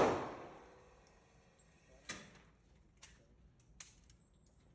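The last of a quick string of gunshots echoes and fades within the first half second, then three faint, sharp cracks come about a second apart.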